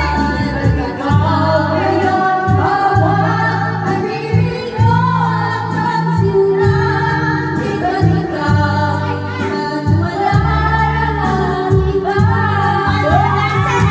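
A woman singing karaoke into a microphone over a recorded backing track with a pulsing bass line, amplified through the room's speakers.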